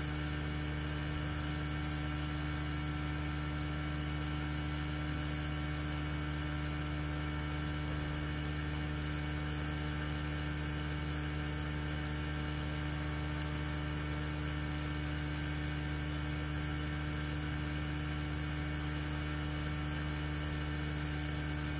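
Steady electrical mains hum with a faint hiss, unchanging, picked up by the recording.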